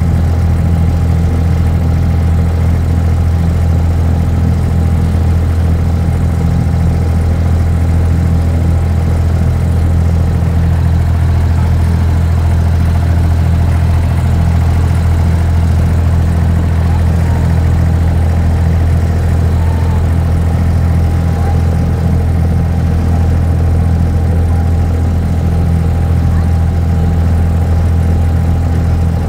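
Inboard diesel engine of a wooden abra water taxi running steadily underway: a loud, even low drone with a fast regular pulse, unchanged in speed throughout.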